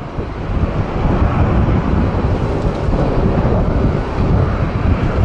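Jet engines of a Boeing 737-800 (CFM56-7B turbofans), a loud steady rumble that grows slightly louder after about a second, with wind buffeting the microphone.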